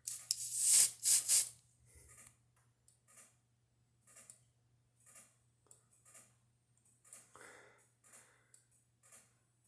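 Aerosol smoke-detector test spray fired at a smoke detector in two short hisses in the first second and a half, to set the detector into alarm. Faint handling rustles and clicks follow over a low steady hum.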